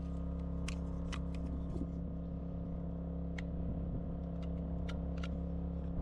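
A steady mechanical hum with several low tones underneath, and scattered sharp clicks and taps as a fuse housing is worked apart by hand.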